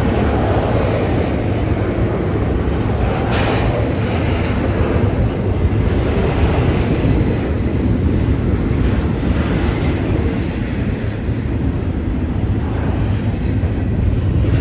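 Intermodal freight train's container cars rolling past close by: a loud, steady rumble of steel wheels on the rails.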